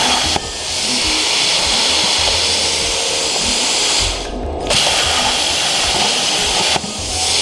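CNC plasma torch cutting 18-gauge steel at 45 amps: a loud, steady hiss that cuts out twice for about half a second, once about four seconds in and again near the end, as the arc stops between cuts and restarts.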